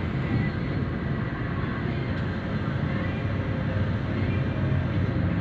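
Steady low rumble of a moving road vehicle's engine and tyres, heard from on board.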